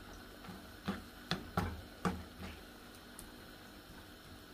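Spatula knocking and scraping against a frying pan while stirring a thick creamy shrimp and mussel sauce: about five sharp clicks in the first two and a half seconds, then quieter stirring.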